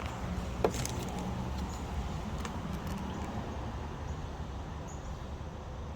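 A few small clicks from working the plastic syringe of a windshield repair kit up and down in its resin-filled pedestal to draw a vacuum on the crack, over a steady low rumble.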